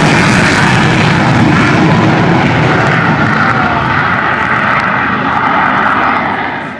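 Panavia Tornado's twin turbofan engines at high power on take-off, a loud, steady jet noise. From about four seconds in it grows duller as the aircraft draws away, then falls away quickly near the end.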